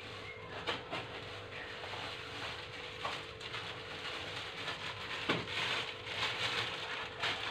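Spiced sauce simmering in a wok on an induction cooker: a steady bubbling hiss that swells after the middle, with a few sharp pops, over a steady low hum.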